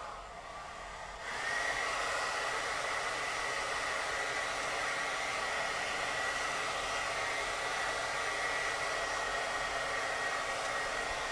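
Handheld hair dryer blowing steadily on its cold-air setting. About a second in it gets louder and a steady high whine comes in over the rush of air.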